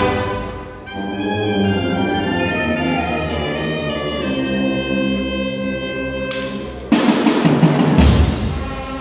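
High school marching band playing: sousaphones, trumpets, trombones and saxophones hold full brass chords, dipping briefly under a second in. Loud percussion hits crash in about seven seconds in, with heavy low drum strokes around eight seconds.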